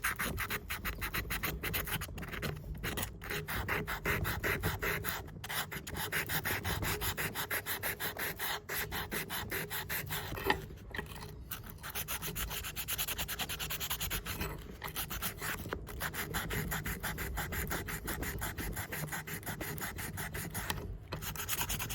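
Rapid back-and-forth scrubbing against the hardened steel blade of Felco No. 2 pruning shears as it is cleaned, with a few brief pauses.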